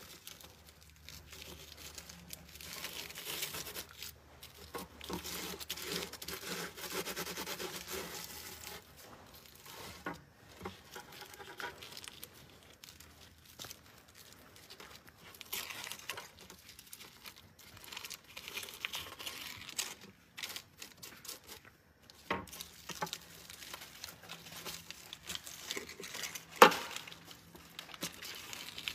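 Aluminium foil crinkling and tearing as it is peeled open by hand, in irregular bouts with quieter pauses and one sharp crackle near the end.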